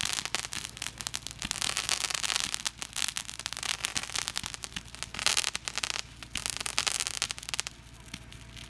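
Fireworks going off: a dense, rapid crackling and popping, with two louder hissing spells past the middle as more fireworks shoot up trailing sparks.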